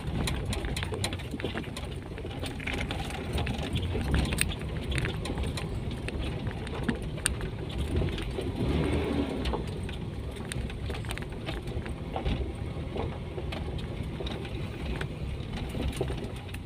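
Toyota Kijang driving over a rough gravel track, heard inside the cabin: a steady engine and tyre rumble with many sharp clicks and knocks from stones and rattling parts.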